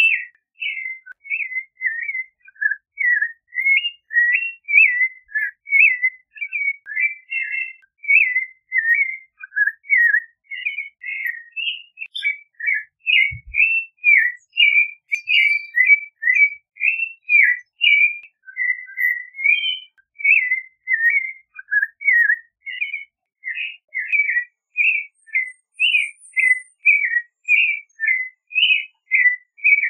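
Clay-colored thrush singing: a long, unbroken run of short, varied whistled phrases, close to two a second.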